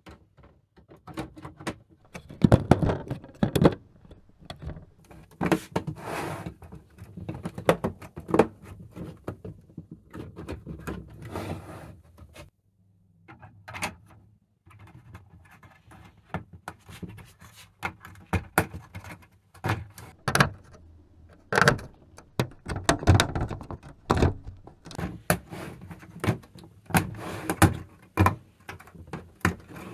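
LEGO Technic plastic beams, frames and pins clicking, knocking and rattling as they are handled and pressed together: irregular sharp clicks and knocks, with a short lull about twelve seconds in.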